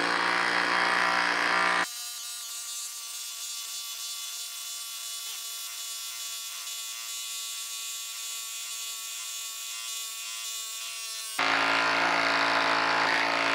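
DeWalt Atomic cordless impact driver hammering as it drives a 6-inch lag screw into a log. About two seconds in the sound drops in level and thins to a higher, steady whine, then comes back full and loud near the end.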